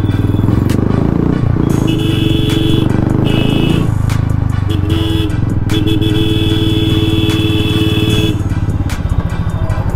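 Royal Enfield single-cylinder motorcycle engine running in slow traffic, with a vehicle horn sounding four times between about two and eight seconds in, the last blast long and held.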